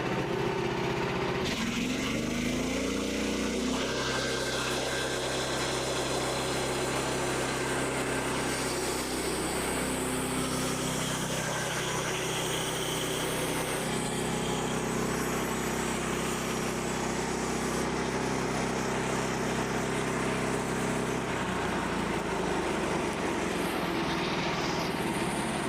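Gas engine of a Frontier OS27 portable band sawmill revving up about two seconds in, then running steadily at high speed while the band blade cuts a board from the log, easing back near the end.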